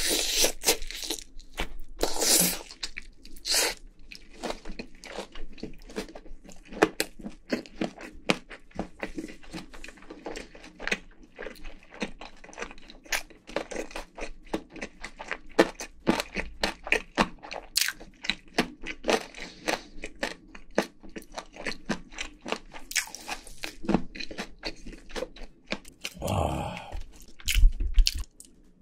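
Close-miked crunching and chewing of crispy fried chicken: dense, irregular sharp crunches as the batter is bitten and chewed. A louder burst with a few low thuds comes near the end.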